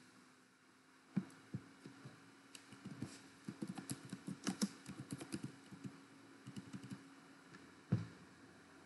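Typing on a computer keyboard: a run of quick key clicks for several seconds, then one louder click near the end, over a faint steady hum.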